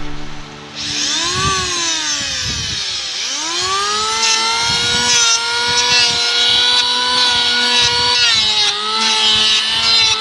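Electric hand planer planing a wooden boat plank: the motor whines up about a second in, sinks again, then starts once more and runs steadily over the rasp of the blade, its pitch dipping briefly a couple of times as the blade bites into the wood.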